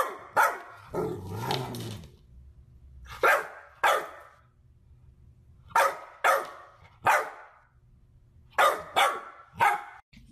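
Golden retriever puppy play-barking: short, sharp yaps in twos and threes with pauses of a second or two between them, and a brief low growl after the first pair.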